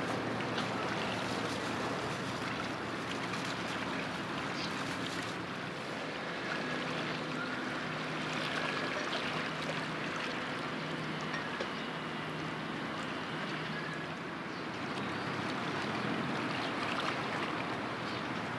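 Steady harbour ambience: an even wash of water and wind noise, with a faint low engine drone from vessels on the water through the middle stretch.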